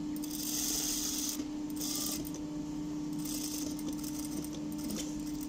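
Industrial sewing machine stitching an invisible zipper onto fabric in several short runs, over the steady hum of its motor.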